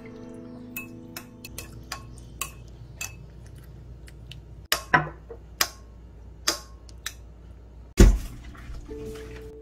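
A metal spoon stirring sauce in a cut-glass bowl, clinking irregularly against the glass, the sharpest clinks in the middle. Near the end a single heavy thump.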